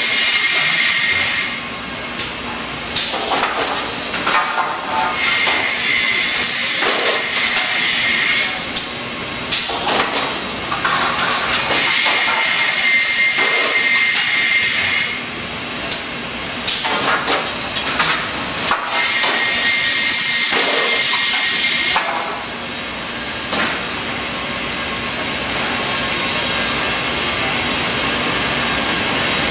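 A Cameron Quick Rip rip-saw line runs loud and steady while boards are fed through and cut, one after another every few seconds. Each cut brings a higher whine, and knocks and wooden clatter come from the boards on the chain conveyor. From about 22 seconds in the cutting stops and the machine runs on, a little quieter and steadier.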